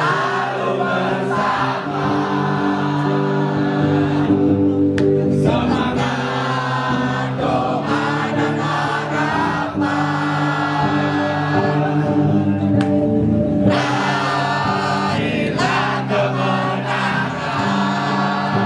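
Many voices singing a song together over held backing chords, the chords changing about five seconds in and again near the end.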